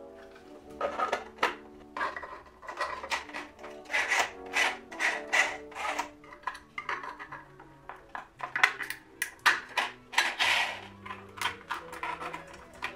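3D-printed plastic drum magazine parts being handled and fitted together: a quick run of hard clicks, knocks and scraping rubs as pieces are pressed and seated, over soft background music.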